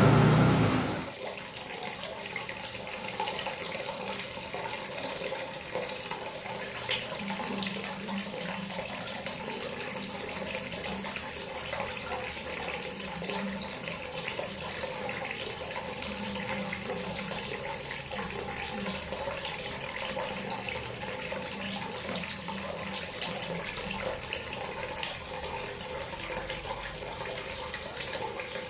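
Water running steadily from a tap. A louder sound fades out in the first second before the flow is heard on its own.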